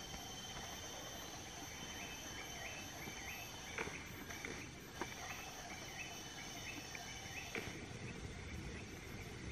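Faint field ambience: insects trilling steadily while a bird repeats a short call about three times a second for several seconds, with a break in the middle. A few soft knocks stand out, the loudest sounds here, about four, five and seven and a half seconds in.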